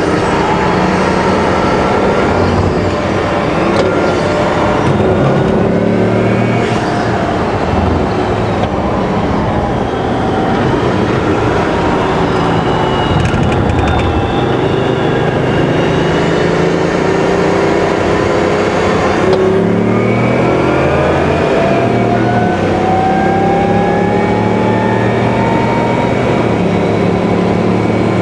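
Bugatti Veyron's quad-turbo W16 engine heard from inside the cabin while it is driven hard on a track, with road and wind noise. Its pitch climbs and drops back several times as it accelerates and changes gear, with the longest rising pull about two-thirds of the way in.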